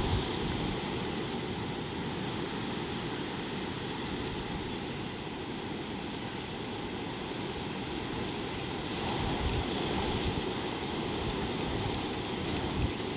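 Steady open-air ambience with wind buffeting the microphone. Low gusts of rumble come about nine to ten seconds in, and a short one near the end.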